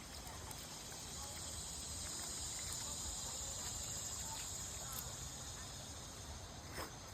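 A steady, high-pitched drone of summer insects that swells about a second in and eases off near the end, with a few faint clicks.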